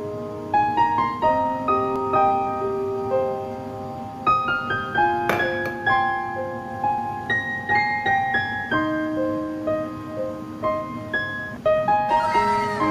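Solo piano music: a gentle melody of single struck notes and chords, each note ringing and fading.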